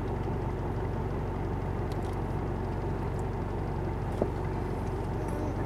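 Four-wheel-drive vehicle's engine idling steadily, with one short click about four seconds in.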